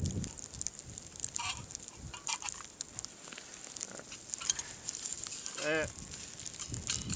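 Rustling and light clicks and knocks of camping gear being handled and fitted together, over a steady hiss, with one brief pitched squeak about three-quarters of the way through.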